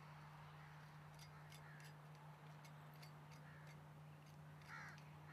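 Faint crow caws, a few short calls with the clearest one near the end, over a steady low hum; otherwise near silence.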